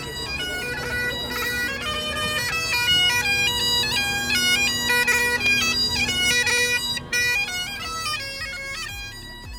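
Bagpipes playing a quick melody over a steady held drone.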